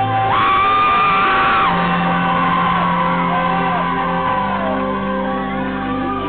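Live band music in a concert hall, with audience members shouting and screaming over it; one high scream is held for about a second and a half near the start.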